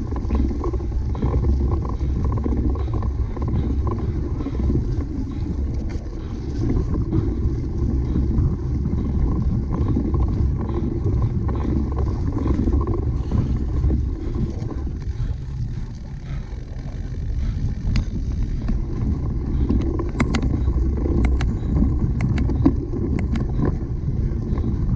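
Cyclocross bicycle ridden over rough ground: a steady low rumble with wind on the microphone, and a run of sharp clicks and rattles in the last several seconds.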